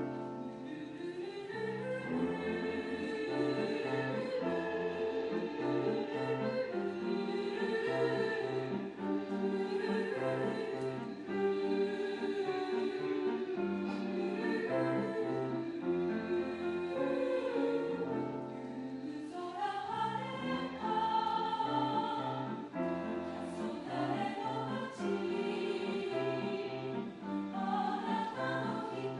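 Mixed choir singing a slow song in parts, with sustained sung chords.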